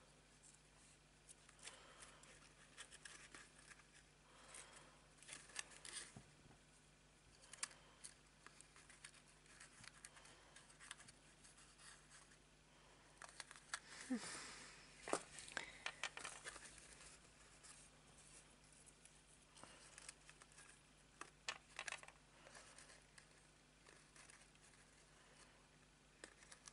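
Faint paper rustling and light clicks as small cardstock and vellum die-cut pieces are handled and positioned, with a short busier patch of rustling about halfway through.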